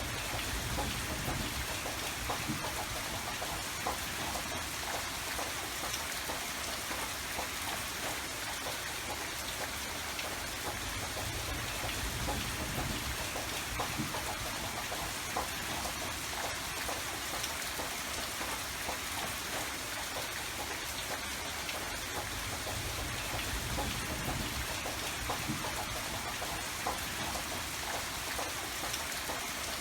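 Steady rainfall: an even hiss of rain with many small drops pattering on surfaces and a low rumble that swells gently every several seconds.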